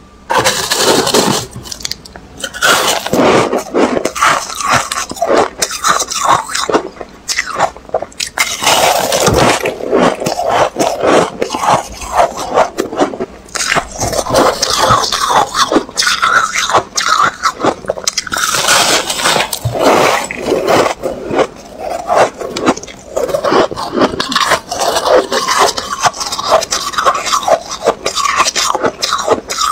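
Metal spoon scraping and scooping powdery freezer frost in a plastic bowl, mixed with crunching and chewing as the frost is eaten; a dense, continuous run of short crackly strokes.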